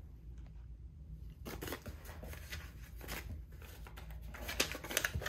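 Paper dollar bills rustling and flicking as they are sorted and counted by hand, in a few short bursts with quiet between.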